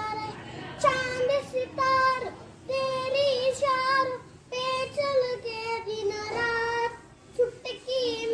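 A young boy singing solo with no accompaniment, holding wavering notes in short phrases broken by brief pauses for breath.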